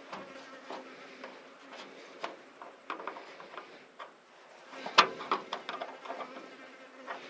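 Scattered clicks and light metallic knocks of hand tools working on hose clamps, with one sharp knock about five seconds in.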